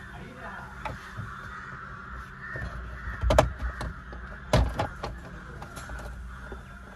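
Birds cawing in the background, with sharp knocks and clicks of work on the steering column's plastic covers, the two loudest about three and four and a half seconds in.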